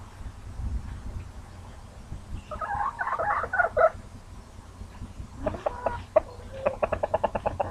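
Roosters calling: one long call about two and a half seconds in, then fast, even clucking from about five and a half seconds on.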